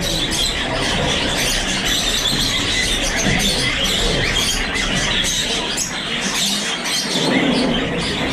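Many small caged birds chirping and squawking together in a dense, steady high chatter.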